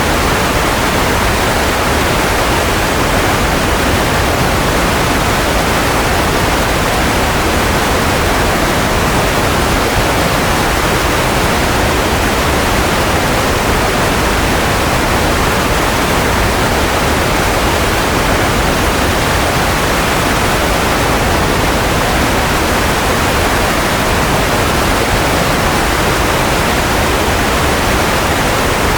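Steady white noise: an even, unbroken hiss with no tones, rhythm or changes.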